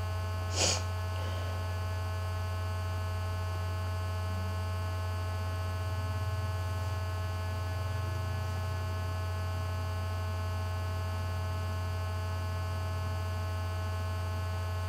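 Steady low electrical mains hum with fainter steady tones above it, and one short, sharp noise about half a second in.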